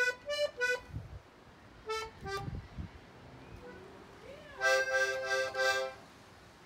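Button accordion played in short, halting chords by a first-time beginner: three quick chords at the start, two more about two seconds in, then a faster run of four or five chords near the end.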